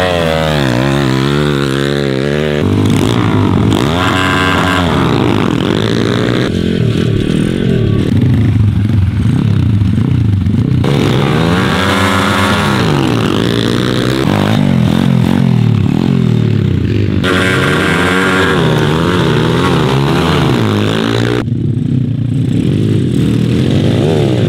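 Two MRF 140 pitbikes' small four-stroke single-cylinder engines revving and accelerating hard in repeated standing starts, the engine note rising and falling over and over, with abrupt cuts between takes.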